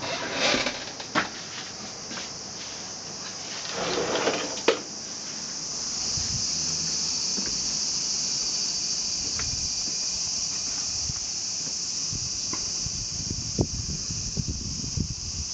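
A steady high hiss that gets louder about six seconds in and then holds, with rustling and a few sharp knocks in the first five seconds.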